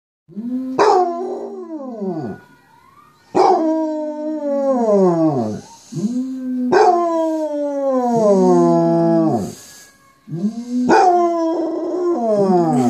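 Basset hound howling along with recorded basset hound howls: four long howls, each sliding down in pitch, with short gaps between them.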